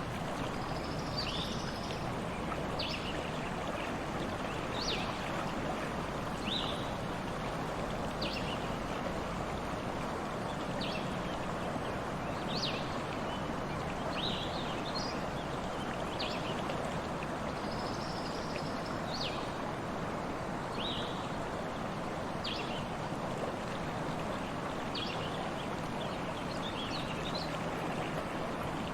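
Stream water flowing steadily, with a bird giving short, high chirps every second or two.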